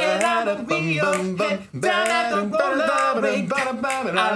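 A cappella singing: several overdubbed parts by one male singer in close harmony, with no instruments.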